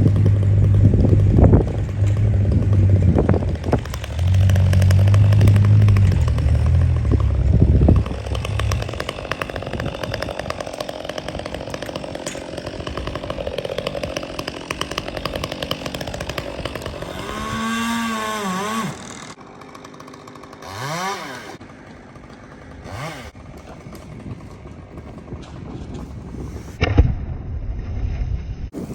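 Stihl chainsaw running through a cut, with heavy low rumbling in the first several seconds. Later it revs up and down in a couple of sweeping pitch changes, then drops lower, and there is one sharp knock near the end.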